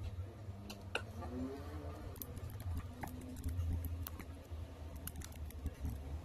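Scattered light clicks and taps of fingers handling a laptop LCD panel and pressing at its display-cable connector, over a steady low hum.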